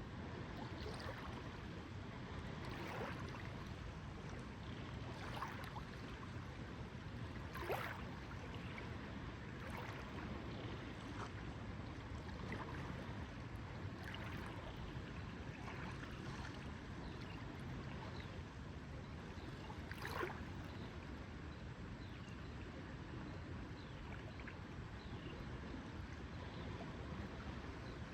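Lake water lapping gently, with small irregular splashes every second or two over a steady low background wash.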